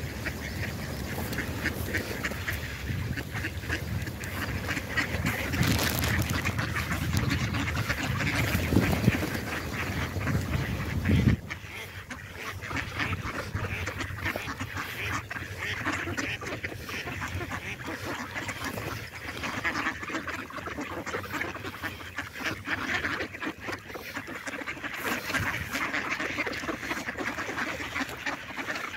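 A flock of mallard ducks quacking continuously, many birds calling over one another. A low rumble lies under the first eleven seconds and cuts off suddenly.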